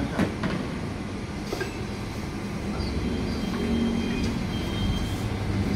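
Steady low vehicle-like rumble, growing slowly louder, with a faint thin high whine in the second half.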